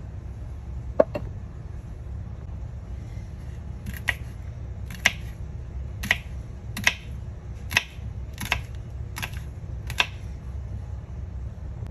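Kitchen knife chopping a green pepper on a cutting board: a single knock about a second in, then about eight short chops, a little under a second apart, from about four seconds in.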